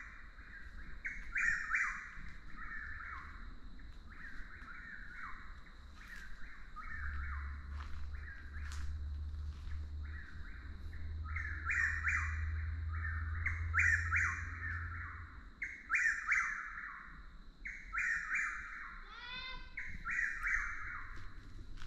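Chuck-will's-widow singing its repeated "chuck-will's-widow" song, one phrase about every two seconds with a few short gaps. A steady high tone runs underneath, and one brief, different rising call cuts in near the end.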